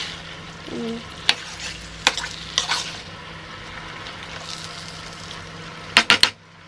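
Onions, tomatoes and kamias sautéing in oil in a stainless steel pan, sizzling steadily while a metal slotted spoon stirs them, clinking and scraping against the pan now and then. Near the end there is a quick run of clicks.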